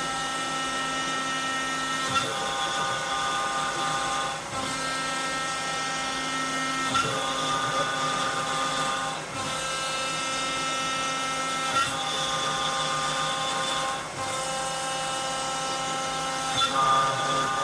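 CNC router cutting wood: a steady, high-pitched whine from the spindle and stepper motors. The pitch shifts abruptly every two to three seconds as the machine changes moves.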